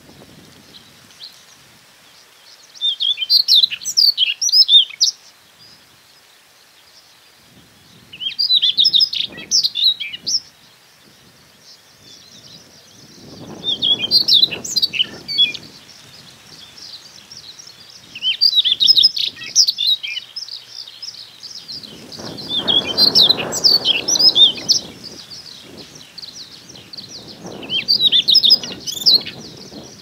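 Male Siberian rubythroat singing its breeding-season song, which claims territory and courts females: six short, high, warbling phrases of about two seconds each, coming every four to five seconds.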